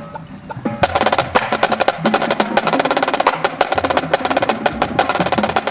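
Marching snare line playing a fast unison exercise on high-tension marching snare drums. It opens with a few scattered strokes, then from about a second in runs into dense, rapid sticking.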